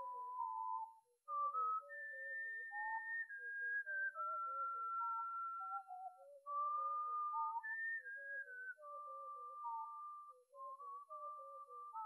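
A person whistling a slow melody in held, pure notes that slide from one to the next, with a second, lower line moving beneath it. There is a brief break a little after one second in.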